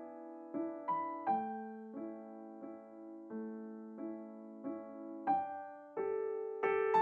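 Background music: a gentle piano melody, single notes and chords struck about once or twice a second and left to ring and fade.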